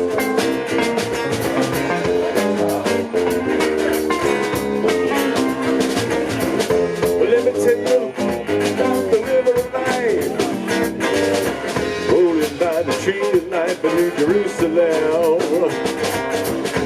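A live band playing an instrumental passage of a song, with guitar to the fore over a steady beat. From about halfway on, the lead line bends and wavers in pitch.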